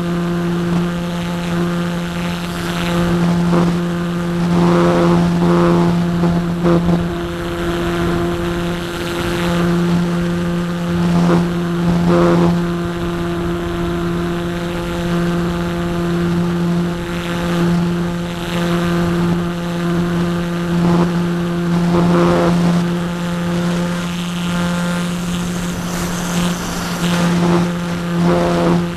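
Parkzone Radian's electric motor (Firepower 10 outrunner) and propeller running steadily in flight, heard from on board as a steady hum with a rush of air and brief swells every few seconds.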